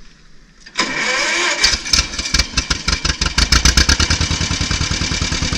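1955 John Deere 40S tractor's two-cylinder engine being started: the starter cranks with a short rising whine just under a second in, the engine catches and runs unevenly for a couple of seconds, then settles into a steady idle with an even pulse.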